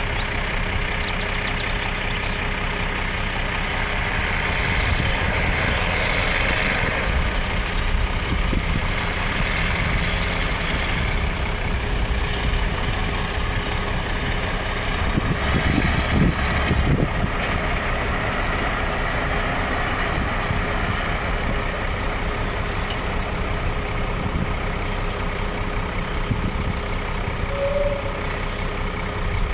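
Heavy vehicle engine running steadily, with a louder low surge about halfway through.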